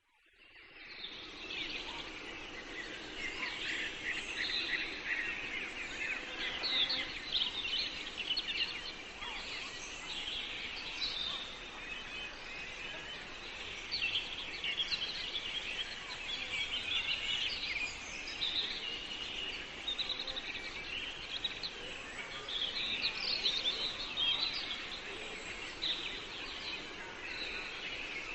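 Many small birds chirping and twittering, dense and continuous, over a steady background hiss; the sound fades in at the start.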